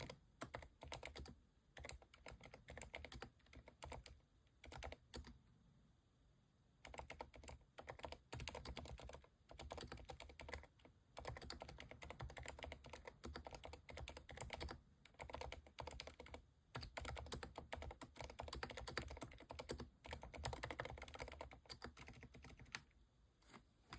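Typing on a Keychron V10 Pro Max mechanical keyboard with silent switches (Cherry MX2A Silent Red on the letter keys, TTC Silent Brown on the modifiers): a quiet, muted patter of keystrokes in quick runs broken by short pauses, the longest about six seconds in.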